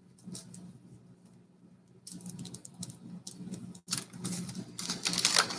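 1989 Bowman baseball cards being handled and flipped through: quick papery rustles and clicks of card stock, sparse at first, then getting busier and louder from about two seconds in.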